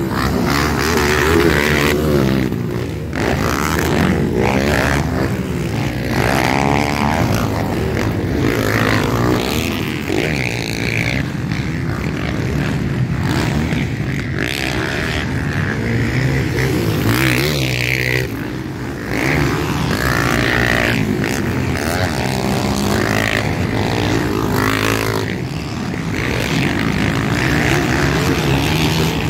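Several motocross bikes racing, their engines revving up and dropping back over and over as they take the jumps and turns, one engine note overlapping another.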